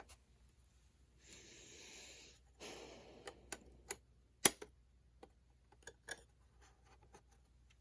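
Small hand-work sounds on an RC truck's chassis: two short rustles, then a series of sharp, irregular plastic-and-hardware clicks and taps as a roll cage panel and its plastic plate are worked into place, the loudest click about four and a half seconds in.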